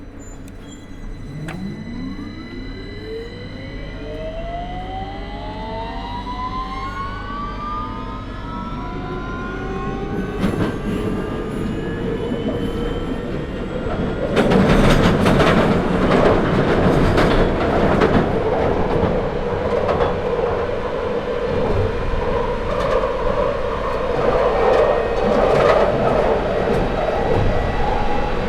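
London Underground 2009 Stock train accelerating, heard onboard: its traction motors whine in several tones that rise together in pitch. About halfway the wheel-on-rail rumble and clatter grows louder as the train runs at speed.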